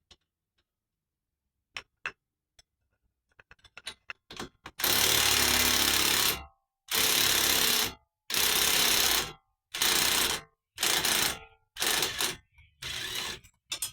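Impact wrench (rattle gun) hammering in repeated bursts. A few light clicks come first, then about eight runs of hammering start about five seconds in, each a second or so long and the later ones shorter.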